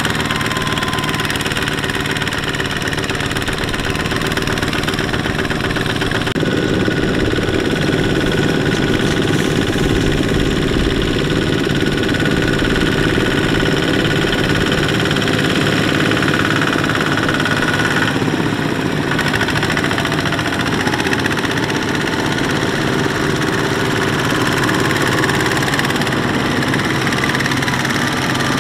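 Single-cylinder diesel engines of Kubota RT120 two-wheel power tillers running steadily under load while pulling trailers of rice sacks. The engine note changes abruptly about six seconds in and twice more later.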